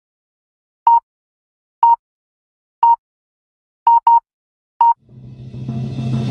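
Six short, identical electronic beeps about a second apart, two of them in quick succession around four seconds in, with silence between them. Music swells in from about five seconds in.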